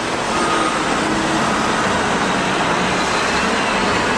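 Steady rush of running water from a tap or sprayer pouring over a small plastic toy as it is washed.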